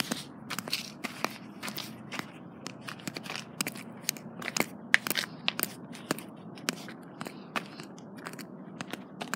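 Irregular crunching and crackling clicks, a few a second, the loudest about five seconds in: a plastic Schleich wolf figurine being walked over gravel and dry grass.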